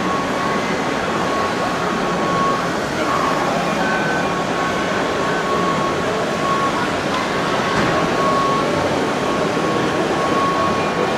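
Steady din of radio-controlled model trucks and machinery working, with crowd chatter and a thin steady whine. Three short high beeps come about four to five seconds in.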